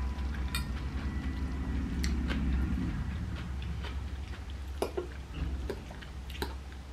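Chewing a mouthful of pasta salad with the mouth closed, close to the microphone. A handful of sharp clicks come from a metal fork tapping and scraping a ceramic bowl as it stirs and scoops, over a steady low hum.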